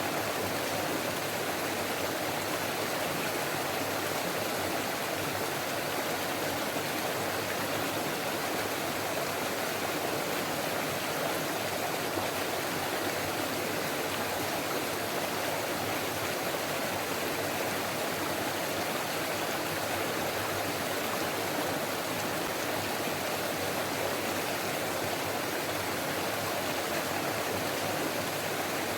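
Forest stream flowing steadily: an even, unbroken rush of running water.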